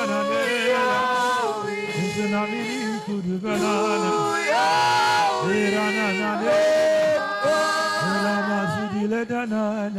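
Unaccompanied worship singing: a man's voice holding long notes that slide up and down in pitch, with other voices singing along.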